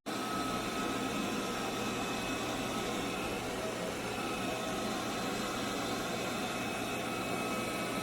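Roborock Qrevo Pro robot vacuum running: a steady motor whir and rush of air with a faint high whine.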